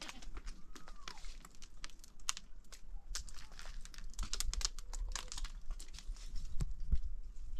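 An irregular run of sharp clicks and crinkling crackles, several a second, over a faint low hum.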